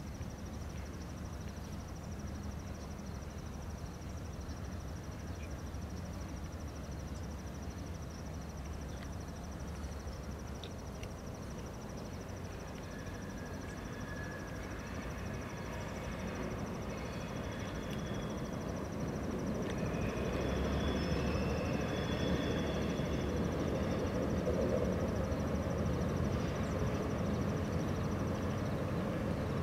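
Distant train of two diesel locomotives and passenger cars running past across the water: a steady low rumble that grows louder in the last third. A thin, steady high tone sits above it and stops near the end, and short high squeals come and go in the middle.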